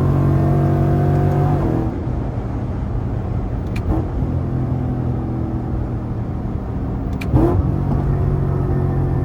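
Lexus IS F's 5.0-litre V8 running under load, its note rising slightly at first. About two seconds in it drops to a lower, quieter drone. It picks up again after a short knock about seven seconds in.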